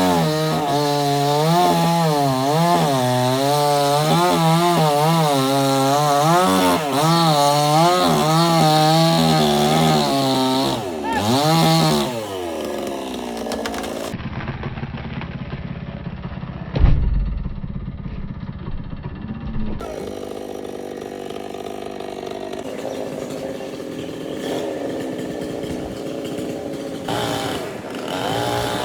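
Two-stroke chainsaw running under load, its pitch wavering up and down as it cuts, then dropping off about twelve seconds in. A heavy low thud comes near the middle, and the saw then runs on at a steadier pitch.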